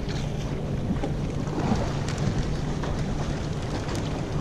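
Steady wind and water noise around a small open fishing boat, with a low steady hum underneath and a few faint clicks.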